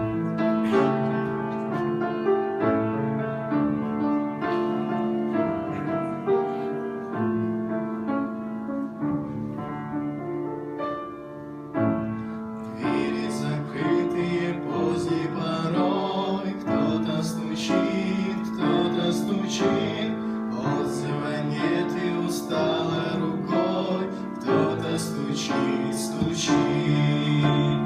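Instrumental introduction to a gospel song: piano or keyboard playing sustained notes and chords, with percussion coming in about halfway through and keeping a steady beat.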